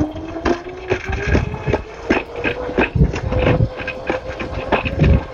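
Motorized Razor kick scooter being ridden at speed: the motor's whine climbs steadily in pitch as it accelerates. Over it comes a quick run of knocks and rattles as the small wheels roll over pavement cracks and sidewalk joints.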